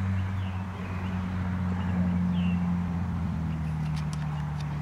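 An engine running steadily with a low hum, its pitch dipping slightly about three seconds in. A bird chirps faintly a few times.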